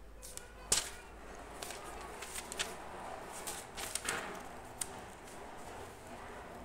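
Pages of a printed, bound Quran being turned by hand: a run of crisp paper flicks and rustles, the sharpest about three-quarters of a second in.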